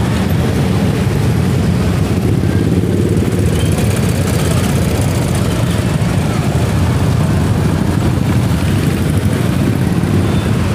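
Steady din of dense traffic crawling in a jam, with many vehicle engines idling and creeping along.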